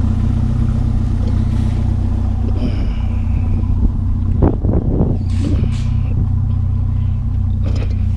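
Vehicle engine running steadily, with a few short knocks and clunks about four and a half seconds in.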